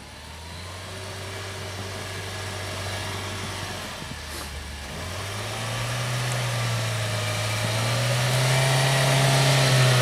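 UAZ Patriot SUV's engine pulling under load as the vehicle rocks and pushes through deep snow. The engine note steps up about halfway through and grows steadily louder as it comes closer.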